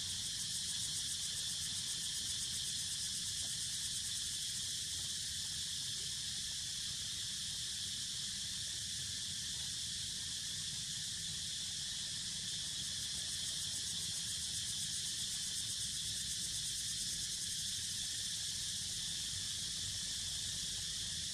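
Steady, high-pitched insect chorus with a fast, even pulsing, over a low rumble.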